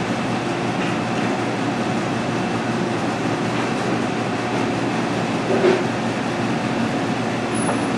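Steady rushing, machine-like background noise with one short knock about five and a half seconds in.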